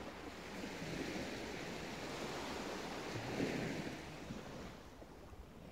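Small sea waves breaking and washing up a sandy shore, a steady surf sound that swells about three and a half seconds in and eases off near the end.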